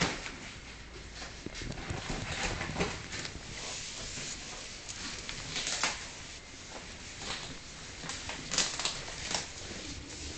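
Irregular scuffs, scrapes and light knocks of a ferret scrabbling and tussling with a shoe on a wooden floor, with a few sharper clicks near the middle and near the end.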